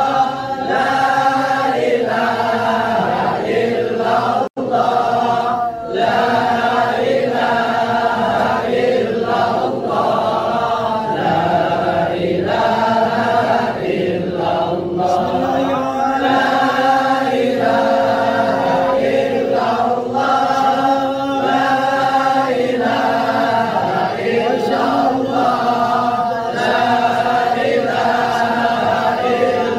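A group of voices chanting a devotional Islamic melody together in long held lines, with one very brief drop-out about four and a half seconds in.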